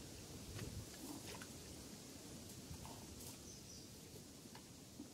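Faint outdoor ambience: a steady low rumble with scattered faint clicks and ticks, and a brief faint high chirp about three and a half seconds in.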